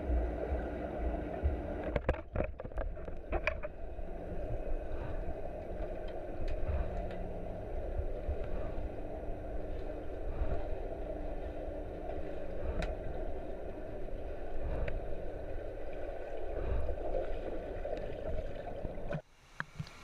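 Muffled underwater rushing and rumbling picked up by an action camera in its waterproof housing, with a few clicks about two to three seconds in. The sound drops away sharply shortly before the end.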